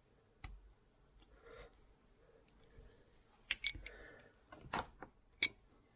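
Small metal parts and tools clinking as they are handled: a handful of sharp clicks, a cluster about halfway through and two more near the end.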